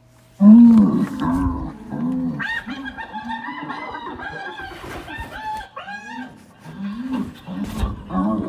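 Domestic fowl calling: a string of short pitched calls that start abruptly, with higher, thinner calls through the middle.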